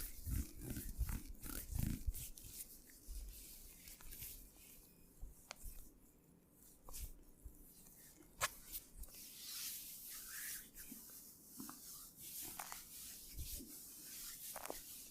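Massage handling sounds: hands working on skin, with a run of low thuds in the first two seconds, then scattered light clicks and rubbing, and one sharper click about eight seconds in.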